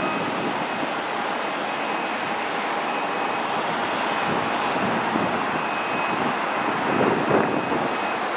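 Steady roar of fast traffic on an expressway as a column of cars drives past.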